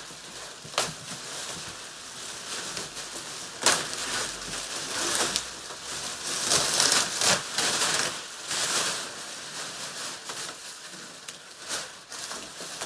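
Plastic protective wrapping being pulled off a TV, crinkling and rustling in uneven bursts with a few sharp crackles.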